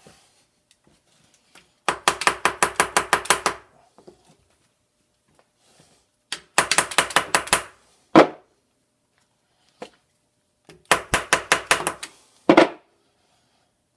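Three runs of rapid metallic clicks, about ten a second, each lasting a second or so; the second and third are each followed by a single sharper knock.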